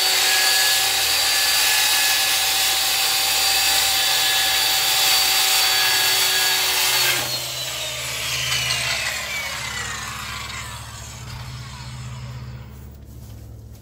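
Circular saw cutting lengthwise through a rough-sawn cedar slab, a steady whine. About seven seconds in the trigger is released and the blade winds down, its pitch falling over about four seconds.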